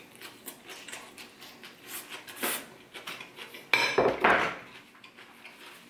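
A metal fork clicking and scraping against a small ceramic bowl of salad. About four seconds in, the bowl is set down with a louder ringing clatter.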